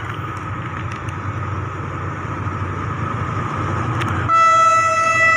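Diesel locomotive of an approaching express train, its low rumble slowly growing louder, then about four seconds in the locomotive's horn sounding one loud, steady blast that carries on.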